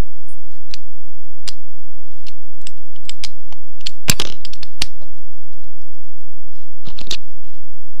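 Sharp metallic clicks and clatter of a brass Master Lock No. 140 padlock and its shackle being handled, loudest in a quick cluster about four seconds in and again briefly about seven seconds in. A loud, steady low hum runs underneath.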